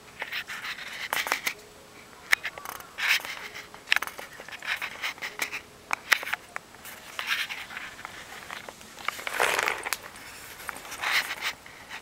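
Irregular gritty scuffs and scrapes of shoes on sandy concrete, a step or scuff every second or so, with sharp little clicks among them.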